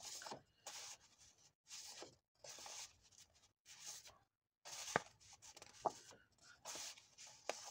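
Sheets of patterned craft paper rustling and sliding against each other as they are leafed through: a string of soft swishes about a second apart, with a couple of sharp ticks in the middle.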